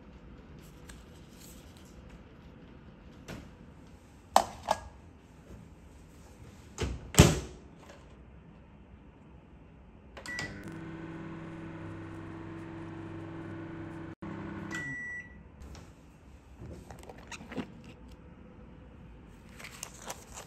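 Microwave oven: a few sharp clicks and knocks as it is handled, a short beep as it starts, a steady hum while it runs for about four seconds, then a longer beep as it stops. Light rustling of handled packaging near the end.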